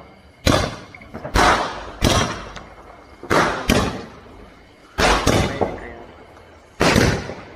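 Aerial fireworks shot off in a quick series: about eight sharp bangs, irregularly spaced, each with a short ringing tail.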